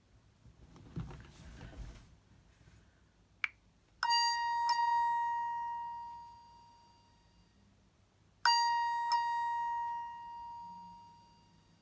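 LG Spirit smartphone ringtone: a bell-like chime struck twice in quick succession on one note, ringing out and fading over a few seconds. It then plays again about four and a half seconds later. A short click comes just before the first chime.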